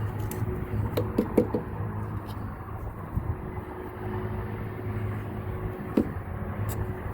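Steady low engine hum, like a diesel idling, under a few light metallic clicks and knocks as AC lines and fittings are handled: a quick cluster about a second in and a single sharper knock near six seconds.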